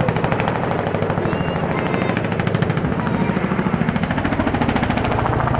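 RAF Boeing CH-47 Chinook HC4's twin tandem rotors beating overhead in a rapid, steady, chopping blade slap as it manoeuvres, over the low drone of its engines.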